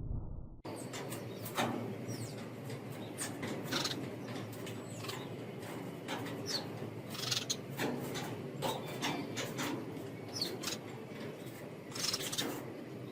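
Small birds chirping at a seed feeder: short, scattered high chirps with a few quick falling notes, over a light steady hiss.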